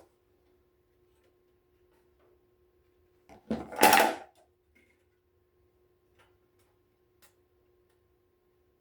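Plastic heater parts being handled during reassembly: one brief scrape or rustle about three and a half seconds in, then a couple of faint clicks, over a faint steady hum.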